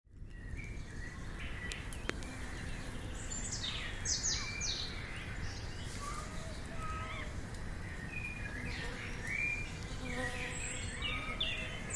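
Birds chirping and calling in short, scattered phrases over a steady low background rumble, with two sharp clicks about two seconds in.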